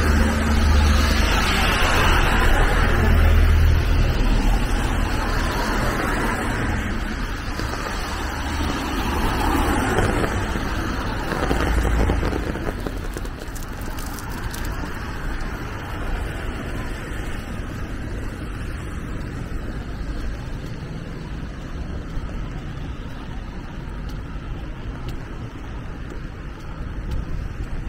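Road traffic passing on a wet city street: a heavy low rumble of vehicles for about the first twelve seconds, easing into a quieter, steady traffic hum.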